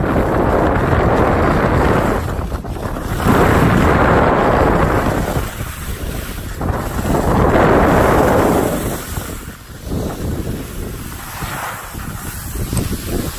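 Wind buffeting the microphone together with skis scraping and hissing over packed snow during a downhill run. It rises and falls in several long surges and eases off over the last few seconds as the skier slows.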